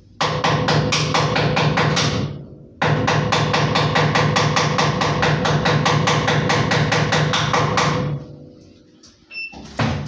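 Electric motor of a tyre-shop machine running with a fast, even rattle over a steady hum. It runs in two stretches that start abruptly, breaking off about two seconds in, then winds down after about eight seconds. A short electronic beep follows near the end.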